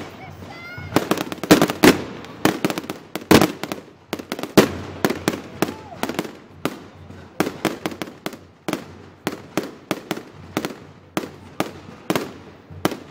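Fireworks display: aerial shells bursting in a rapid, uneven string of bangs, several a second, the loudest in the first few seconds.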